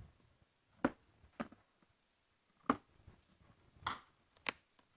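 Scissors snipping through plastic packing straps bound around cardboard cartons: about five sharp separate snips and snaps, one near the end longer and rougher.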